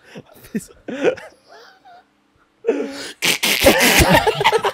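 Brief mutterings, then from a little past halfway a loud, noisy vocal outburst from the hosts lasting about two seconds.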